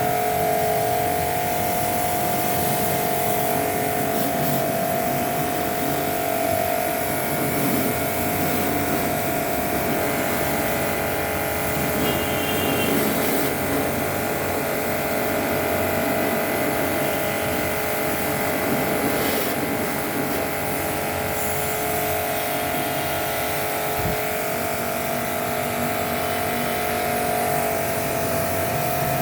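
An electric motor running steadily with a constant whine, over an even hiss.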